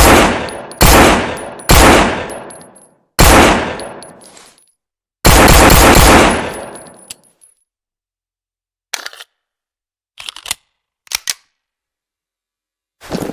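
Colt 1911 pistol firing five loud shots, each ringing out with a decaying echo; the last is longer and sits apart after a pause. A few seconds later come three quieter groups of short, sharp mechanical clicks.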